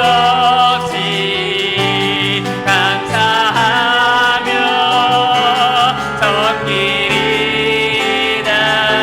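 Live worship-band music: piano and bass holding long chords under a melody line with vibrato.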